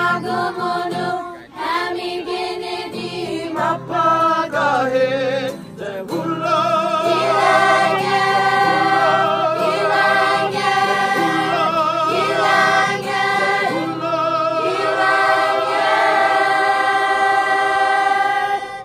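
A group of voices singing together in harmony, a choir-like song with long held notes.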